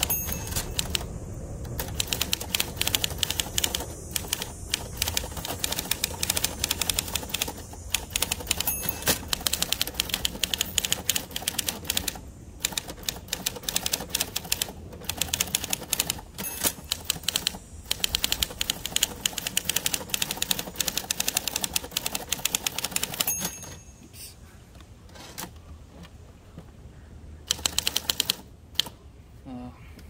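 Torpedo 18B manual typewriter being typed on fast: a dense run of sharp keystroke and typebar clacks. It stops about 23 seconds in, and one more short flurry of keystrokes comes a few seconds later. The typebars strike a platen the owner says needs replacing.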